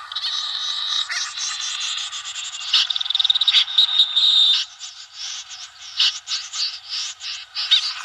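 Snipe calls from a bird-trapping lure recording: high-pitched harsh calls, running into a fast chattering series from about three to four and a half seconds in, then single calls spaced apart.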